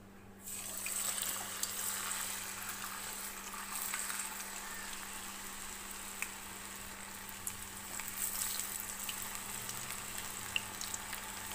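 Snake gourd rings coated in a gram-flour, rice-flour and cornflour batter deep-frying in hot oil. The sizzle starts abruptly about half a second in as the pieces go into the oil, then runs on as a steady hiss with scattered small pops.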